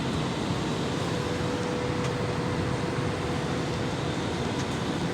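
Steady rushing noise of a Boeing 737's engines and airflow heard inside the passenger cabin, with a faint thin hum joining about a second in and fading near the end.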